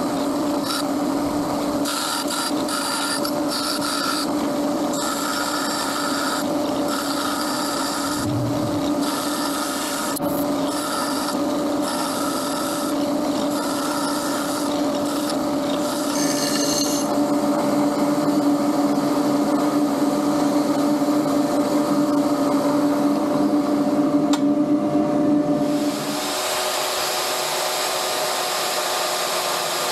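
Small bench belt sander running with a steady motor hum while a metal bracket plate is ground against the belt, the rasp of metal on the abrasive coming and going. About 26 seconds in the sound changes abruptly to a drill press motor running.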